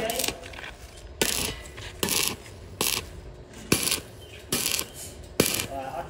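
Stick-welding arc on galvanized steel tubing, crackling in about six short bursts less than a second apart as tack welds are struck at a frame joint.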